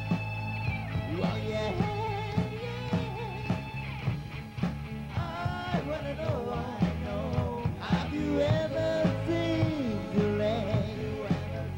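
Rock song: a singing voice over guitar, bass and a steady drum beat.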